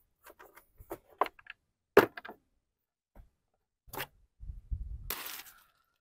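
Scattered clicks and knocks of plastic engine parts being handled while a riding mower's air filter is changed, with one sharp click about two seconds in. A brief rustle near the end.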